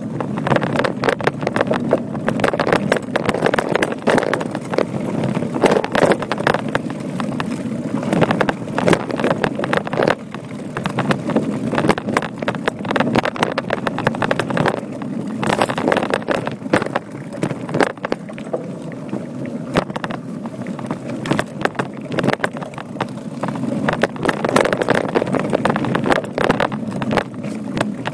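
Voodoo Bizango mountain bike riding over a rough dirt trail: continuous rumble of the tyres on the ground, with dense irregular rattling and knocking from the bike and camera as they shake over stones, and wind on the microphone.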